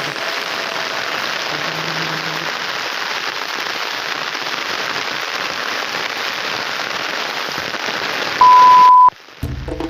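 Heavy rain falling steadily, a dense even hiss. Near the end a single loud steady beep lasts under a second, the rain cuts off, and music begins.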